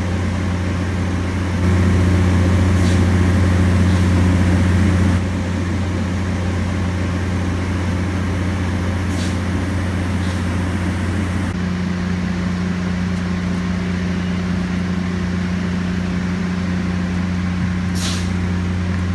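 Diesel engines of a Loram rail grinder train running with a steady deep hum, a little louder for a few seconds near the start. A few light clicks come over it.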